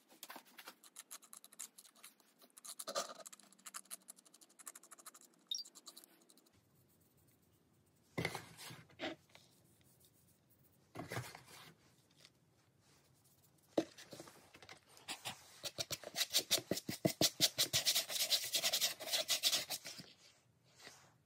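Hands working on a plastic bucket: scattered scratching and handling sounds, then a fast run of short rasping strokes from about 15 to 20 seconds in.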